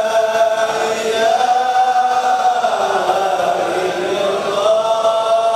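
A group of men chanting Sufi dhikr (zikir) together in unison, holding long drawn-out notes; the pitch dips about three seconds in and rises back near the end.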